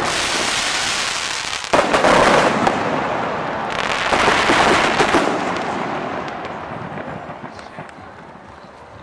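Aerial fireworks bursting: a sudden loud bang about two seconds in, another swell of bursts around four to five seconds, then the sound dies away.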